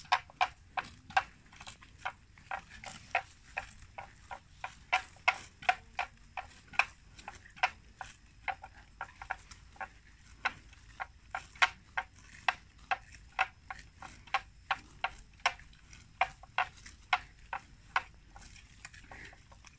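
Water buffalo cropping grass, a crisp tearing snap with each bite, about two to three a second in an uneven rhythm.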